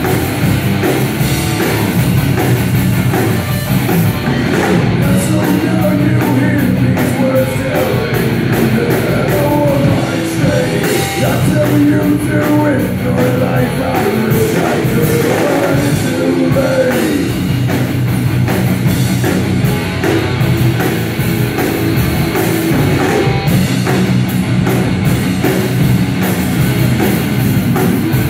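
Live heavy rock band playing loud, continuous music: electric guitars, bass guitar and a drum kit.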